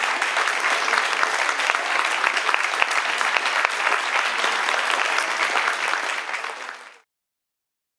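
Audience applauding, a steady dense clapping that fades out and stops about seven seconds in.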